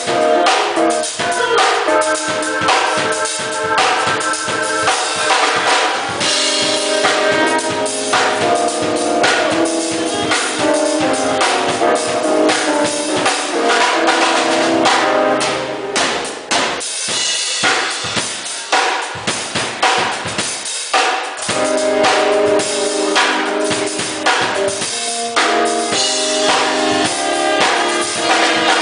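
Band music: a drum kit playing a steady beat of sharp strikes, with held notes from pitched instruments over it, thinning out briefly a little past halfway before the full band returns.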